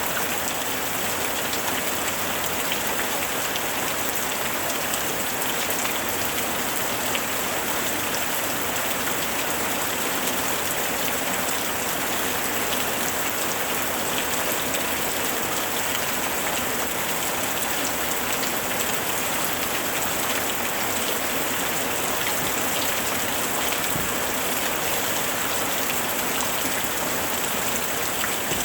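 Steady, dense rainfall pattering on a surface, with many fine individual drop ticks.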